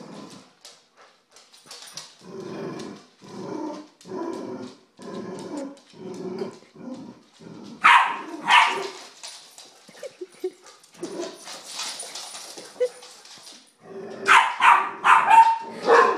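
A chow chow and a Rottweiler puppy squaring off: a run of low growls, then two sharp barks about eight seconds in, and a quick string of loud barks near the end.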